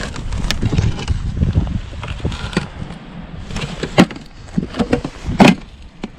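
Several sharp knocks and clatters of household junk being picked up and handled, the loudest about four and five and a half seconds in, over a steady low rumble like a vehicle running.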